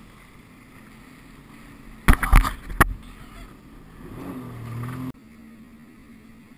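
Sea-Doo RXT 260iS jet ski running, heard muffled from a helmet camera. About two seconds in the hull slams loudly into the wake, a cluster of crashes and then one more. About four seconds in the engine revs rise in pitch, then drop away abruptly.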